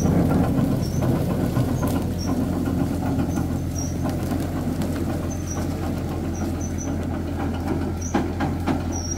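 Kubota GL46 tractor's diesel engine running steadily under way with a load of wood. Short high squeaks come through it about once a second.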